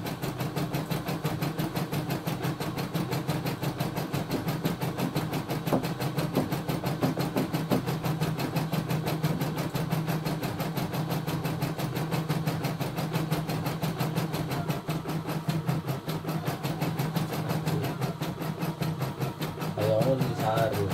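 CNY E960 computerised embroidery machine stitching out a design automatically, its needle running in a fast, even rhythm.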